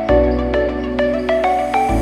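Instrumental background music: a bright melody of quick, evenly spaced notes, about four a second, over a sustained bass chord that changes just before the end.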